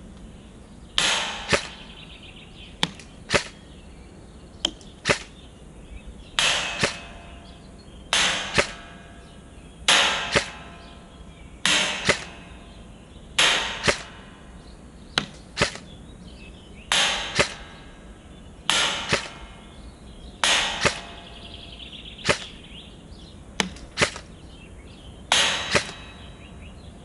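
Lancer Tactical LT-02 M4 CQBR electric airsoft rifle firing single semi-automatic shots, one every second or two, each a short sharp snap of the gearbox and piston, some shots in quick pairs. It runs on an 11.1 V battery.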